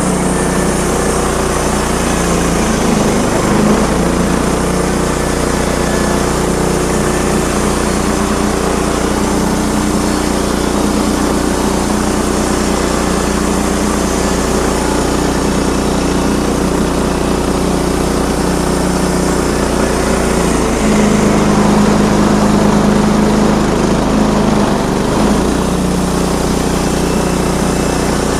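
A portable sawmill's engine running steadily under load during a board cut, its note changing about twenty seconds in.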